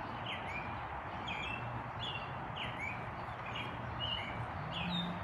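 A songbird calling over and over in short clear whistled notes, each sliding downward, about two notes a second, over a steady low background hum.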